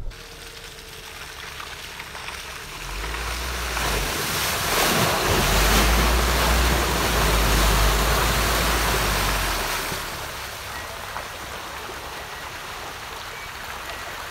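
SsangYong Korando SUV driving past through a muddy, waterlogged track: a rush of tyres splashing through puddles over a low rumble. It builds over a few seconds, is loudest around the middle as the car passes close, then fades as it pulls away.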